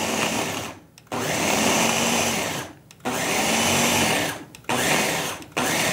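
Ninja food processor chopping cubes of cheddar cheese in pulses: the motor whirs for about a second at a time and cuts off, about five times, with brief gaps between.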